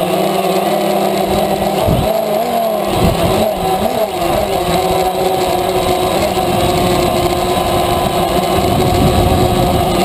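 DJI Phantom quadcopter's motors and propellers whining steadily, heard from the camera on the drone; about two seconds in the pitch wavers up and down for a couple of seconds as the motors change speed.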